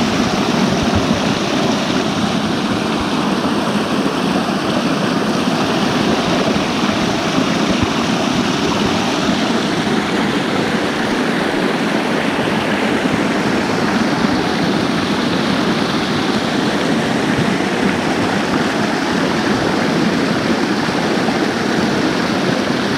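Small waterfall splashing down over rocks close by: a loud, steady rush of falling water.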